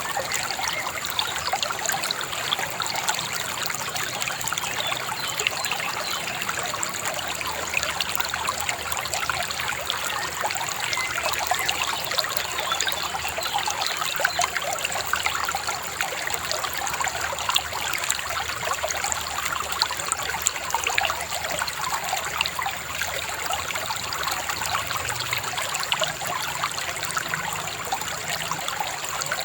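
A river babbling steadily, an even rush of flowing water with no let-up.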